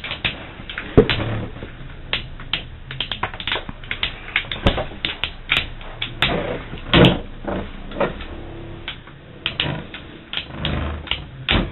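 Metal Beyblade spinning tops clashing and knocking against each other and the plastic stadium walls, a rapid irregular run of sharp clicks.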